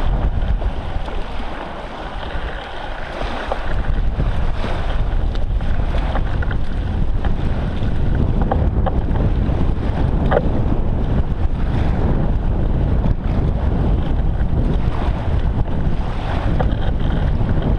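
Steady rumble of wind buffeting the microphone of a bicycle-mounted camera, easing briefly about two seconds in, with small waves lapping at the shore and a few scattered clicks.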